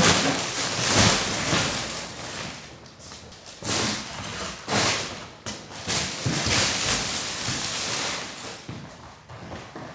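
Bulky plastic-wrapped insulation bags rustling and scraping as they are handled, in several loud swells of crackling noise, each a second or so long.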